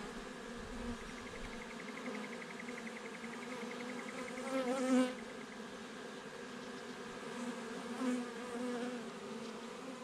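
A swarm of honey bees buzzing steadily around their new hive as they move in. Single bees fly close past and make the buzz swell, loudest about five seconds in and again near eight seconds.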